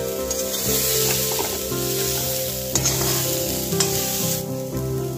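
Fried kohlrabi cubes sizzling in a hot steel kadai as they are scraped out onto a plate. A spatula scrapes and clacks against the pan a few times near the middle.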